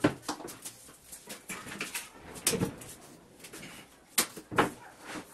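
Several sharp knocks and clatters as laminated MDF panels and a trim router are handled and set down on the workbench, the loudest two close together about four seconds in. No power tool is running.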